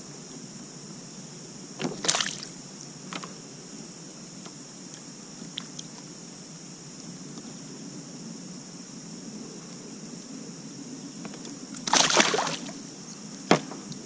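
Water splashing beside a kayak as a released fish goes back into the river: a short splash about two seconds in and a longer one near the end, followed by a sharp knock.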